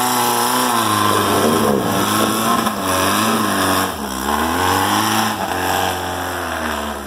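A Volkswagen-powered rail buggy's engine revving up and down over and over as it works up a steep dirt hill climb, its pitch rising and falling every second or so.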